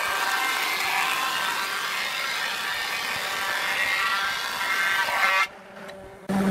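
Combination planer-thicknesser taking a cut on a wooden board: the steady, loud noise of the spinning cutterhead shaving the wood. The noise drops away abruptly for under a second near the end.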